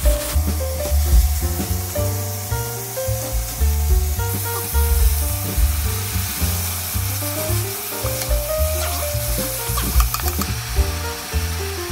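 Sizzling of thinly sliced beef brisket, onion and bean sprouts stir-frying in a hot pan, under background music. The sizzle grows louder about four seconds in.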